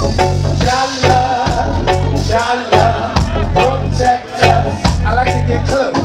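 Live reggae band playing: a singer's voice over a heavy low bass line, keyboard, drums and congas, with sharp percussion strikes keeping the beat.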